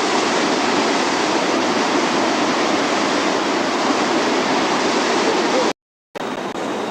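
Waterfall rushing in a steady, loud roar of water. The sound drops out completely for a moment near the end, then comes back a little quieter.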